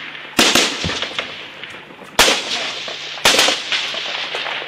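Rifle gunfire: three loud shots about a second or two apart, each followed by an echo that dies away over about a second, with fainter cracks of other gunfire between them.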